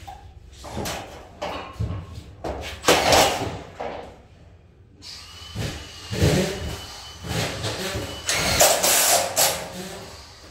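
Cordless drill running in several short bursts as screws are driven into a steel frame, with a thin whine in one run, and knocks and clatter from handling on the frame.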